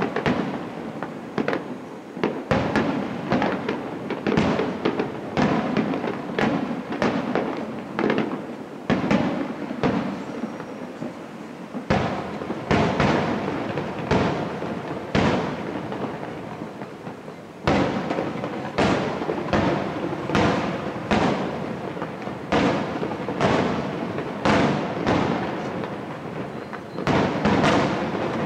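Aerial firework shells bursting one after another, each a sharp bang trailing off in echo, one or two a second, with a brief lull a little past halfway.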